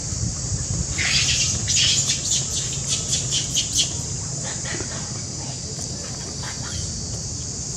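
A quick run of short, sharp animal calls, several a second, from about one to four seconds in, over a steady high hiss.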